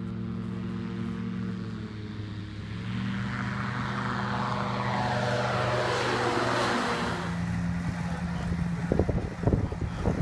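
Engine of a weight-shift ultralight trike droning as it flies low past, loudest and falling in pitch as it goes by; wind buffets the microphone near the end.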